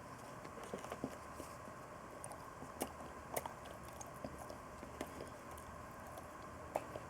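Faint chewing, with soft, scattered mouth clicks and smacks every second or so.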